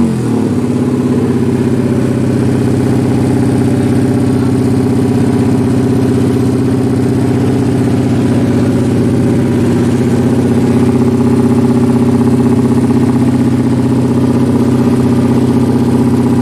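Yamaha MX King race bike's single-cylinder four-stroke engine, on an open racing exhaust: the revs drop away at the very start, then it idles steadily.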